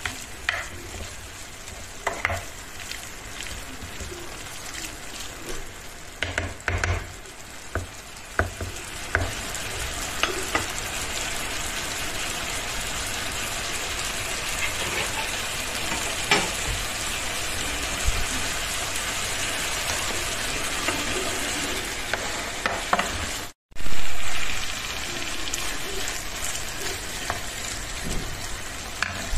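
Diced eggplant, peppers, onion and tomato sizzling in oil in a nonstick frying pan, with a wooden spoon scraping and knocking against the pan as the vegetables are stirred. The sound cuts out for a moment about three-quarters of the way in and comes back with a short loud bump.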